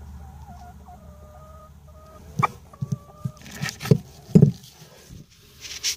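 Hen on the nest just after laying an egg, giving a run of short, low clucks from about two seconds in, mixed with rustling of feathers and nest bedding.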